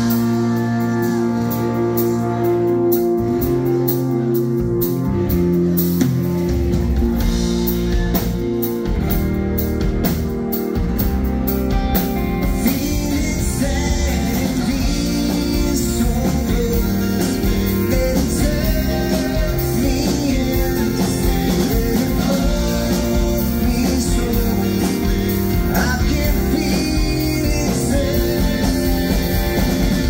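Live rock band playing a song: singing over acoustic guitar, electric bass and drums, with a sharp rhythmic ticking in the first dozen seconds.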